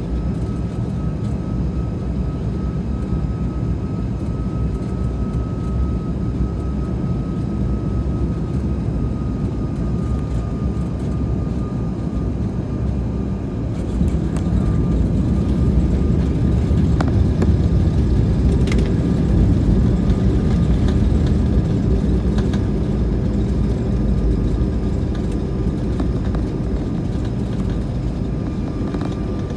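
Cabin noise inside an Airbus A220-300 landing: a steady rumble of airflow and its Pratt & Whitney PW1500G geared turbofans, with a thin steady whine. About halfway through the jet touches down and the rumble turns louder during the rollout on the wet runway, easing off near the end as it slows.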